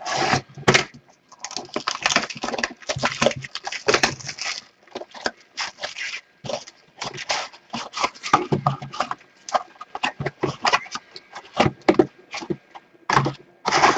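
Irregular crinkling, crackling and tearing of the shrink wrap and cardboard as sealed trading-card boxes are opened by hand.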